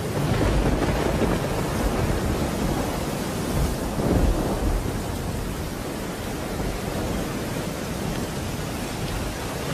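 Thunderstorm: rolling thunder over steady rain, with the rumble swelling about half a second in and again, loudest, about four seconds in.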